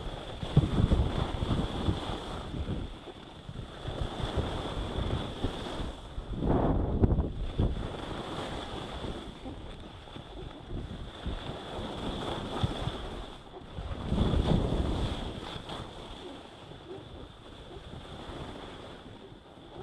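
Wind rushing over the camera microphone together with the hiss and scrape of skis sliding on packed, groomed snow, swelling three times as the skier turns. A faint steady high whine runs underneath.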